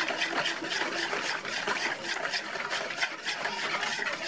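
Metal wire whisk beating eggs, sugar and ice water in a plastic basin: quick, even strokes of sloshing and splashing liquid, about five a second.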